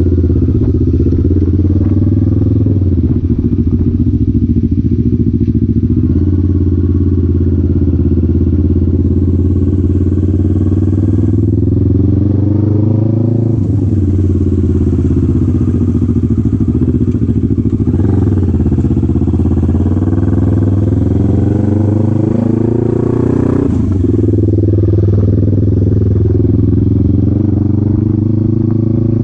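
2019 Kawasaki Ninja 650's parallel-twin engine running while riding, its revs rising and falling several times. A rushing hiss joins it through the middle stretch.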